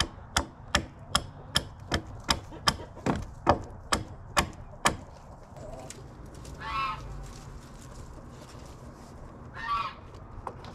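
Hammering: about a dozen sharp blows, roughly two a second, stopping about five seconds in. Then two short calls from poultry, one near the middle and one near the end.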